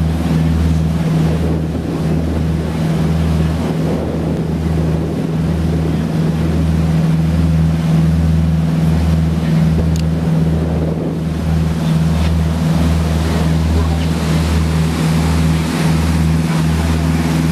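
A motorboat's engines run steadily underway: a low drone with a slow, regular throb. Rushing water from the wake and wind on the microphone run over it.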